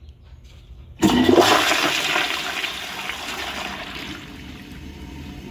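Project Source Pro-Flush Eco pressure-assist toilet flushing on 0.8 gallons: a sudden loud rush of pressurized water about a second in, fading over the next few seconds into a quieter steady run of water.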